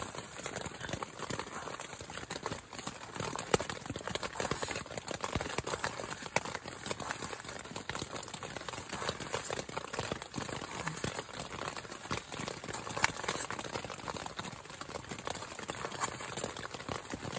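Kitchen knife slicing tomatoes on a bamboo cutting board, the blade knocking on the wood in irregular strokes. Under it runs a steady dense patter of rain.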